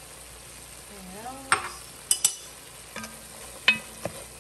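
Wooden spoon stirring browned sausage and minced garlic in an enameled cast-iron Dutch oven over a light sizzle, with several sharp knocks of the spoon against the pot.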